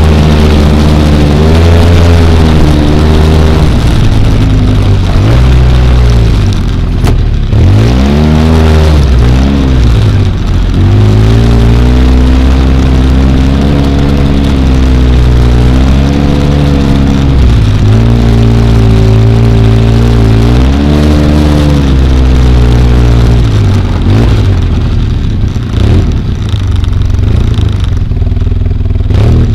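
ATV engine heard from on board the moving quad, revving up and down with the throttle as it is ridden through mud. The pitch rises and falls repeatedly, holding steady for a few seconds at a time, and eases off near the end.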